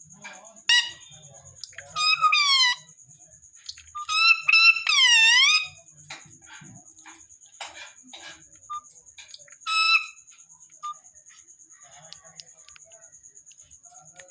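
Pet parrot giving a series of loud, shrill calls: a short one about a second in, a falling call around two seconds, a pair of longer calls around four to five seconds with the second dipping and rising in pitch, and a last short call near ten seconds.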